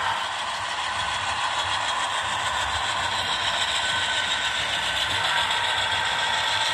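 ScaleTrains model C44-9W diesel locomotive running past on layout track: a steady mechanical clatter of its wheels and drive rolling on the rails.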